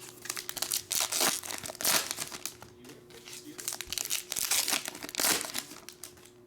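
Panini Elite basketball card pack wrappers crinkling and tearing in several short bursts as the packs are opened, dying down near the end.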